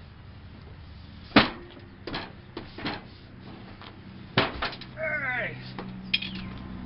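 Several sharp knocks and clunks, the loudest about a second and a half in, like doors or lids being shut, with a short squeaky glide about five seconds in. A low steady hum sets in near the end.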